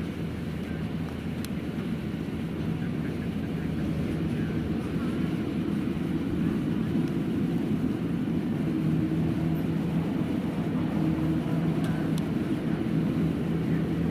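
Kubota DC-93 combine harvester's diesel engine running steadily, a low, even drone that grows a little louder over the first few seconds.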